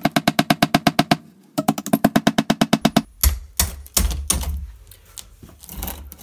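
Mini sledge hammer striking a steel cold chisel in a brick mortar joint: two fast runs of evenly spaced ringing metal strikes, about twelve a second, then from about three seconds in, irregular knocks and low thuds as the joint cracks and the brick loosens.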